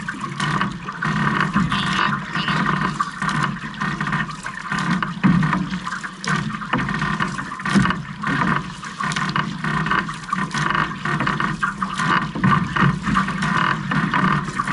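Water rushing and splashing along the hull of a six-person outrigger canoe under way, with paddle blades dipping into the water at irregular moments.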